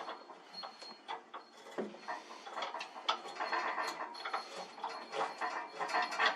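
Hand tools working with an irregular run of small mechanical clicks and rattles, several a second.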